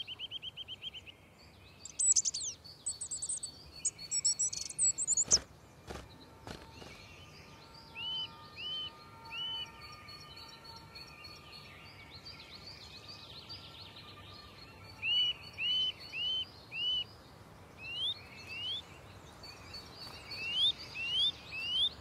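Small woodland birds singing and calling. Clear whistled notes come in runs of three and then four, with rising whistles near the end, as a Eurasian nuthatch calls. Two soft knocks sound about five and six seconds in.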